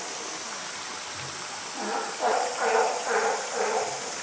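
Indistinct chatter of onlookers, a run of short syllables in the second half, over a steady rushing hiss like running water.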